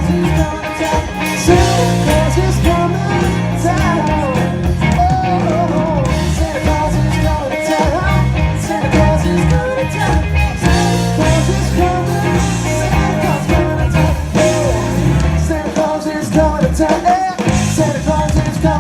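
A rock band playing a song live with a lead singer, with bass, guitar and drums under a wavering sung melody.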